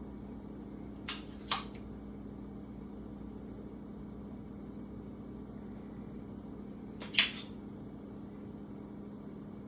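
Steady hum of a kitchen fan, with a couple of short utensil clinks against dishware about a second in and a quicker, louder cluster of clinks about seven seconds in as food is served onto a plate.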